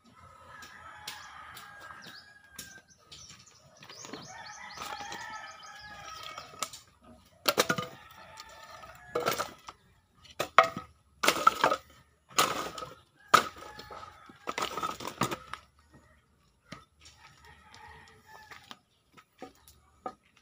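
A rooster crowing several times, each crow lasting about two seconds. In the middle comes a run of loud, sudden knocks and scrapes close by, which are the loudest sounds.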